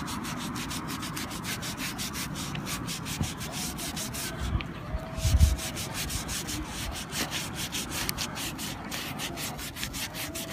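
Quick, even back-and-forth rubbing: a sponge dipped in dish soap scrubbing the rubber blade of a car windshield wiper. It is clearing off the dirt that makes the wiper noisy on the glass.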